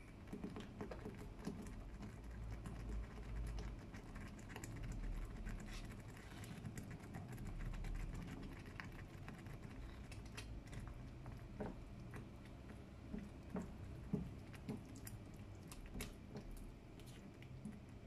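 Silicone spatula stirring and scraping a thick sauce in a granite-coated pan, making irregular soft clicks, taps and scrapes.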